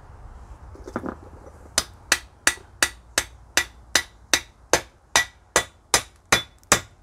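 Club hammer striking a thin steel drift set in a Citroën 2CV front suspension arm: a steady run of about fourteen sharp, ringing metallic blows, nearly three a second, starting a couple of seconds in. The blows are knocking out the tab washer at the top of the kingpin.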